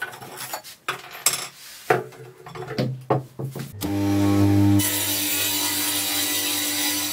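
Irregular short scrapes and knocks, then, about four seconds in, a table saw starts running with a steady motor hum. About a second later its blade cuts through a particleboard block with a loud hiss that lasts a little over two seconds and stops as the cut ends, the motor still running.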